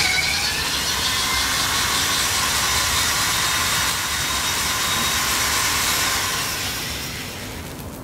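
Electric drill spinning a wad of burning steel wool, throwing sparks: a loud, steady whirring hiss that fades over the last couple of seconds.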